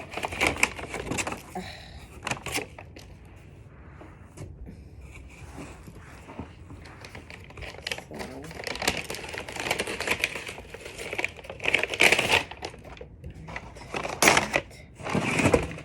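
Packaging rustling and crinkling as amaryllis bulbs are handled and unwrapped, in irregular bursts with many light clicks and taps and a quieter spell in between.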